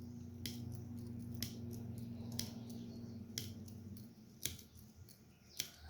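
A Swiss Army knife blade is being snapped open and shut again and again, its backspring clicking sharply about once a second. This works freshly dropped oil into the pivot.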